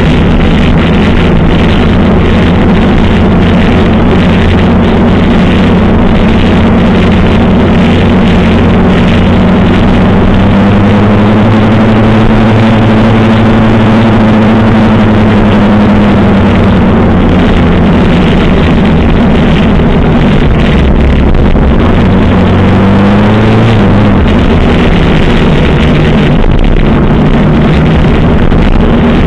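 1985 Suzuki GS700ES motorcycle's air-cooled inline-four running under way at parade pace, with a steady rush of noise under it. The engine note swells and eases about halfway through, then climbs briefly as the rider accelerates near the end.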